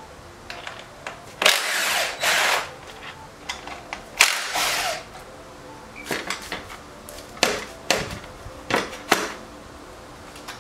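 A cordless power driver runs in two short bursts, loosening the exhaust's clamp bolt, followed by several sharp metallic clanks and knocks as the stock aluminium silencer is worked off the pipe.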